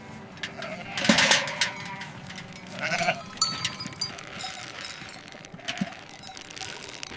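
Farm livestock calling a few times, the loudest call about a second in and another near three seconds, with scattered short knocks in between.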